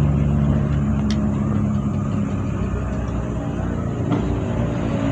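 Roadside traffic: a vehicle engine running with a steady low hum that fades away about two seconds in, leaving the even noise of passing traffic.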